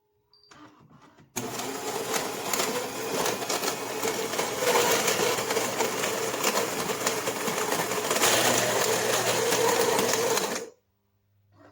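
Philips 3200 fully automatic espresso machine running with a low motor hum and a dense gritty rattle. It starts abruptly and cuts off after about nine seconds.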